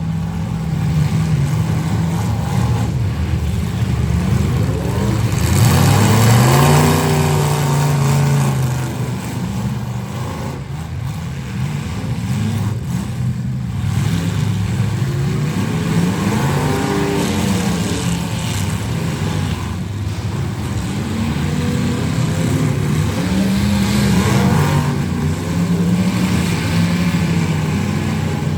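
Full-size demolition derby cars' engines running hard and revving, the pitch climbing and falling in several swells over a steady noisy rumble.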